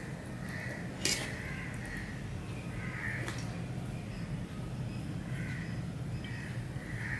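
Stainless steel dishes clink sharply about a second in, with a lighter knock about three seconds in, as a steel bowl is lifted and tipped over a steel plate. Crows caw repeatedly in the background over a steady low hum.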